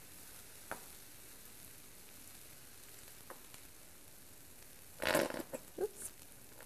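Pancake batter sizzling faintly on a hot griddle. About five seconds in there are a few short squelching squirts from the plastic squeeze bottle as the batter is pushed out.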